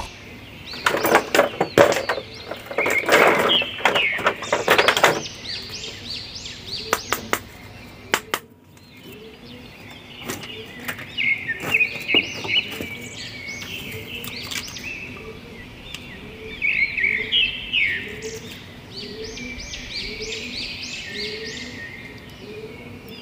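Hard plastic blister tray and figures crackling and clattering as they are handled for a few seconds. Then birds chirping over and over in the background, with a few soft handling clicks.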